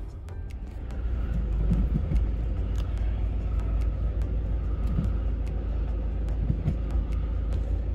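Low steady rumble of a car driving slowly, heard from inside its cabin.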